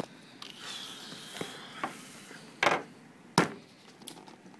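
Knocks and thuds of a cardboard parcel and other things being handled on a wooden table, with some rustling in the first two seconds; the loudest knock comes about three and a half seconds in.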